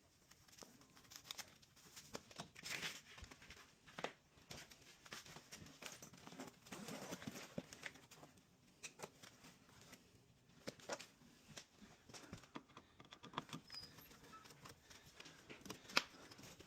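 Faint scattered clicks, taps and rustling of hands handling and working on equipment, irregular and without a rhythm.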